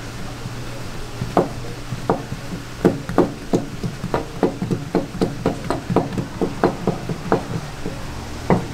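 Knife chopping on a cutting board in a quick run of knocks, about three a second, as raw seafood is cut for sashimi.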